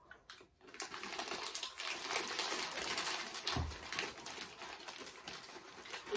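Fast, crisp crackling of potato chips being crunched and foil chip bags crinkling in the hands, with a low thump about three and a half seconds in.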